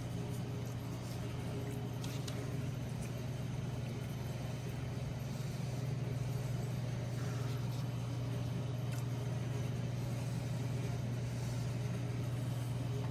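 Steady low machine hum with a few faint light clicks.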